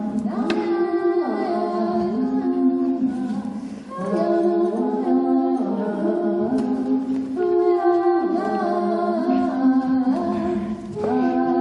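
Slow unaccompanied singing in long held notes, in phrases that break off briefly about four seconds in and again near the end.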